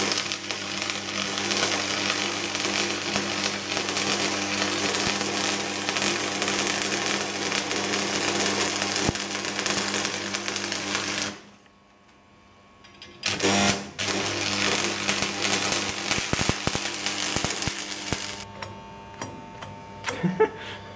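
AC stick welding arc crackling and sputtering loudly over a steady low hum. It breaks off about eleven seconds in, is struck again after two seconds, and runs until about eighteen seconds. Then the arc goes out and only the hum and a few clicks remain as the electrode sticks to the plate.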